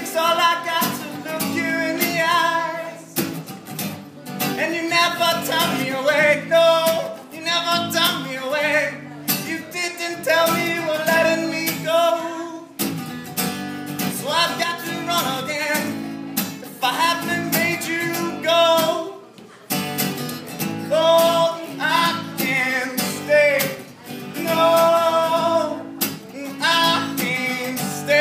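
A live acoustic song: strummed acoustic guitar under a singing voice that comes in phrases of a few seconds each.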